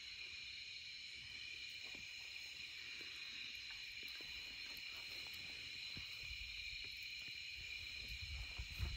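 A steady chorus of night insects, high and faint, with a few faint crackles from a wood fire burning in a stainless steel fire pit. There are a few low thumps near the end.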